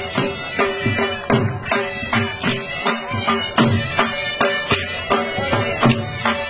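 Dhol drum beating a driving ludi dance rhythm, about two to three strokes a second, with a shehnai playing a held melody over it.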